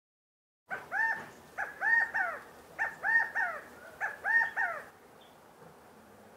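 California quail giving its three-syllable 'chi-ca-go' call four times in a row, about a second apart, each note rising then falling in pitch.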